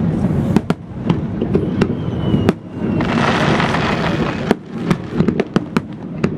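Aerial firework shells bursting in quick succession: a string of sharp bangs over a constant low rumble of booms. About three seconds in, a burst of dense hissing crackle lasts a second and a half.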